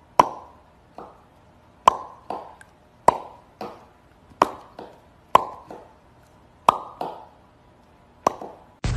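Hollow popping sounds, about seven pairs: a sharp pop, then a softer one about half a second later, repeating roughly every second and a quarter.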